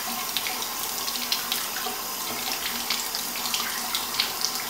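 Tap water running into a sink while a makeup brush is rubbed and rinsed on a silicone brush-cleaning mat, with small irregular splashes throughout.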